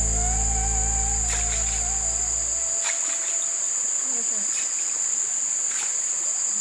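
Steady high-pitched insect drone of crickets in vegetation. Background music with a held melody plays under it and stops about three seconds in.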